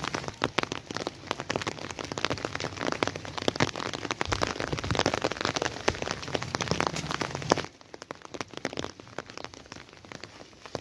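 Rain falling, a dense patter of close drop ticks, which turns much quieter about three-quarters of the way through.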